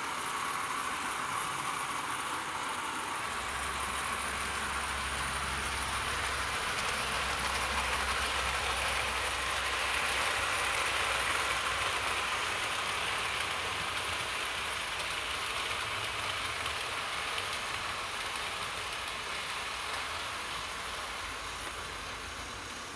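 OO gauge model D49 4-4-0 locomotive and four Pullman coaches running along the track: a steady rolling, whirring hiss of wheels and motor that grows louder towards the middle and fades again near the end, with a low hum through the first half.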